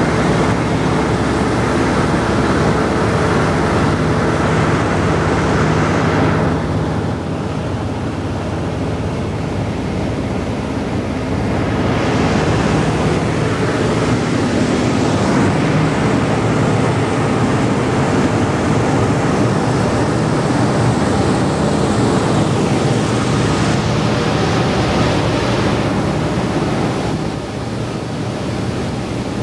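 Boeing B-17G's four Wright R-1820 Cyclone radial engines running at cruise, with rushing wind noise, heard from inside the fuselage. The sound gets quieter about six seconds in, comes back up around twelve seconds, and drops slightly near the end.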